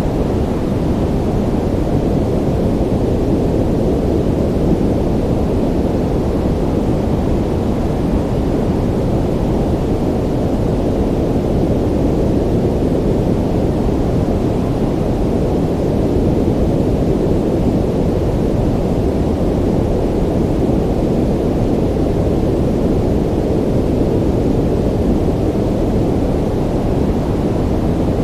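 Ocean ambience: a steady, muffled low rumble of the sea with no distinct breaking waves.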